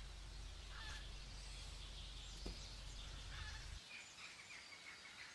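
Quiet background ambience with faint bird chirps over a low hum that cuts off suddenly about four seconds in, and a soft knock about halfway through.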